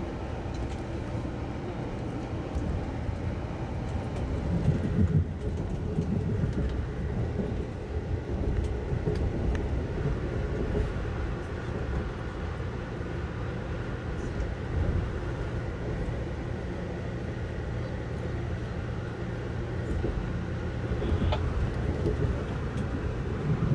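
Amtrak Pennsylvanian passenger train running, heard from inside the coach as a steady low rumble. A few heavier thumps come about five seconds in, and again near the end.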